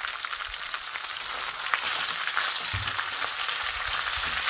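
Minced beef sizzling in hot oil with browned onions in a stainless steel pot, as a wooden spoon pushes and scrapes it around. The sizzle grows slightly louder as the meat takes the heat, with a few low knocks about three seconds in.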